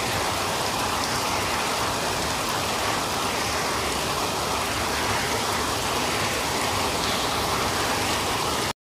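Steady heavy monsoon rain falling, which cuts off suddenly near the end.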